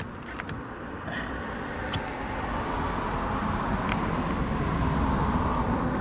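A passing road vehicle: its noise swells steadily over several seconds and eases off near the end. A few light clicks come from the quick-release pedal being pushed onto the crank.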